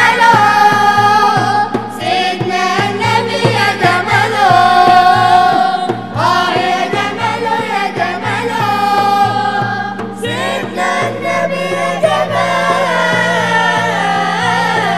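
Mixed chorus of men's, women's and children's voices singing an Islamic devotional song (inshad) in praise of the Prophet, over a steady low beat.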